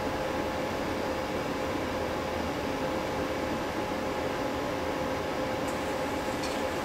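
Steady indoor hum and hiss, like a fan or other running appliance, with two faint high ticks near the end.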